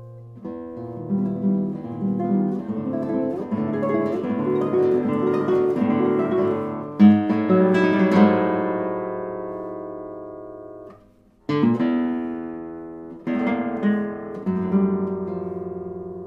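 Solo classical guitar playing: a busy run of plucked notes, then a loud chord about seven seconds in that rings and fades away. After a brief break it strikes fresh chords, each left to ring.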